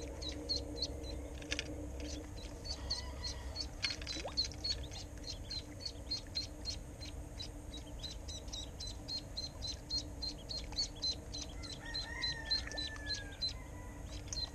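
A live duckling hung on a fishing line as snakehead bait, peeping over and over in short, high, evenly spaced calls, a few a second.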